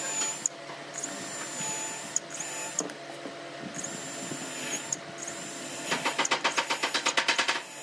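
Makita cordless drill boring pilot holes into a wooden block, running in several short bursts with a steady high whine. For the last couple of seconds it gives a rapid even pulsing, about eight a second.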